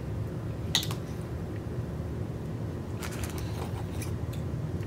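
Light clicks and scrapes of a plastic fork picking at an oyster in its shell, over a steady low room hum. A single sharp click comes just under a second in, and a short run of clicks about three seconds in.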